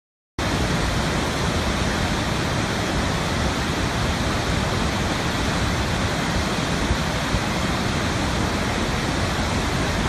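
Steady rushing noise of a waterfall, even and unbroken, starting abruptly about half a second in.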